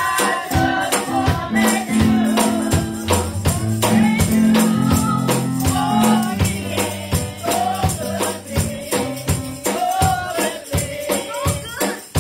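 Gospel singing into a microphone, with a tambourine struck on the beat about two to three times a second over held low chords. The chords fade out near the end, leaving the voice and tambourine.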